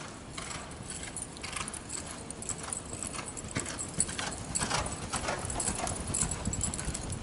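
Hoofbeats of a palomino Quarter Horse mare loping on soft arena dirt, with light metallic jingling from the tack.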